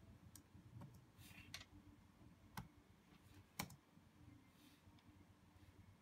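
A few scattered, faint clicks on a laptop's keyboard or touchpad, about five in all, the loudest about three and a half seconds in, over near silence.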